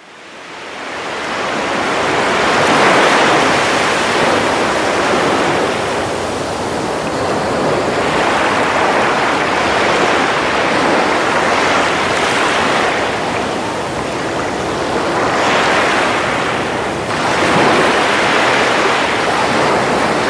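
Ocean surf: waves washing in, the rush swelling and ebbing every few seconds, fading in at the start.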